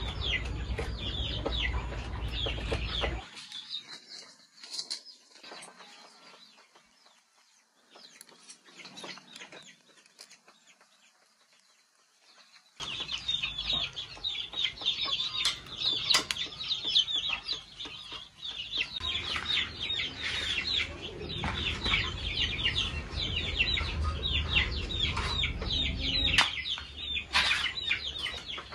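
A flock of chickens clucking and cheeping without pause. The sound drops away to faint rustling about three seconds in and comes back about ten seconds later.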